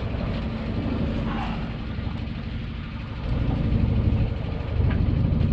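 Sailboat's engine running steadily at low revs while motoring out under power, a low rumble with a steady hum that grows louder a little past halfway.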